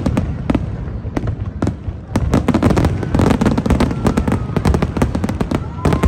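Fireworks display: a rapid run of sharp bangs and crackles over a steady low rumble, the bursts coming thicker and faster from about two seconds in.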